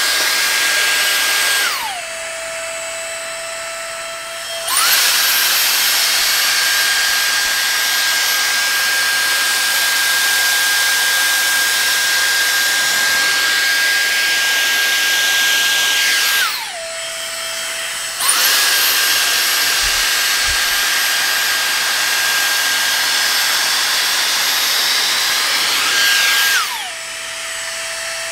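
Dyson Airstrait air straightener blowing in dry mode: a loud rush of air with a steady high whine. Three times the whine slides down in pitch and the airflow drops to a quieter, lower hum. The first two times it then climbs back up to full.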